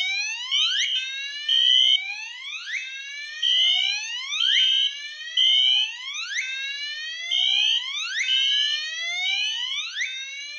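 Fire alarm horns sounding after a manual pull station is pulled. A Gentex Commander 3 on its whoop tone gives rising sweeps about once a second. Over it, a Wheelock HSR Exceeder horn beeps the temporal code-3 pattern: three beeps, then a pause.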